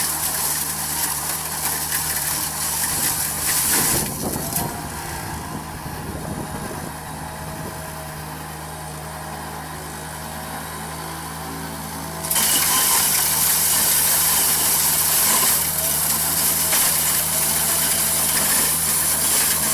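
Engine of a heavy forestry machine running steadily, quieter for several seconds in the middle before getting louder again.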